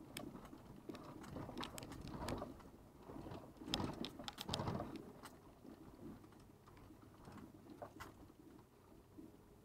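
Car rolling slowly over a rough gravel and dirt road, heard from inside the cabin: irregular clicks, knocks and rattles of stones under the tyres and the body jolting. These are busiest in the first half and ease off after about six seconds to a quieter low hum.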